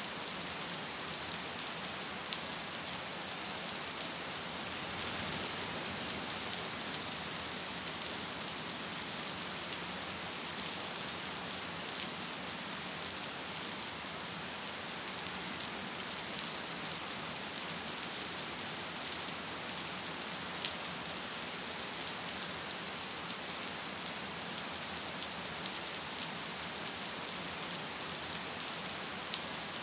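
Gentle rain falling steadily: an even hiss with faint scattered patter of drops.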